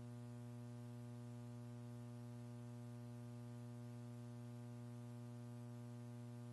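Steady electrical mains hum, a low buzz with a ladder of evenly spaced overtones over faint hiss.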